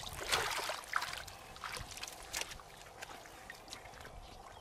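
Footsteps squelching and splashing through wet, waterlogged mud, with irregular wet splats and clicks that are busiest in the first second and then grow fainter.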